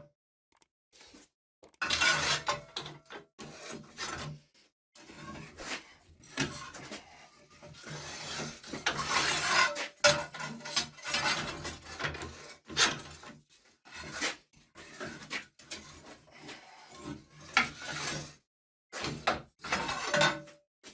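Steel parts of a homemade hand-operated metal bending machine clanking and scraping against each other, in irregular bursts separated by short pauses.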